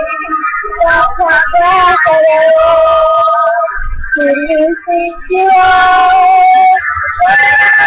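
A young girl singing, holding long notes with short breaths between phrases.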